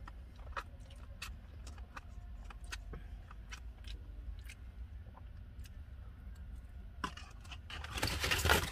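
Mouth sounds of someone eating poutine: scattered wet clicks of chewing, over a steady low hum. Near the end comes a louder rustling burst.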